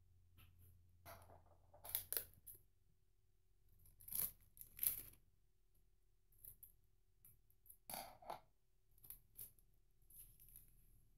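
Paper and tape being handled: a few short, crisp rustles, about two, four and eight seconds in, with fainter ones after.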